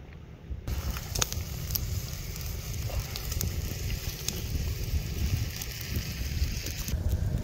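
Pork slices sizzling on a hot mookata domed grill pan: a steady hiss with scattered crackling pops that starts about a second in and stops shortly before the end, over a low rumble.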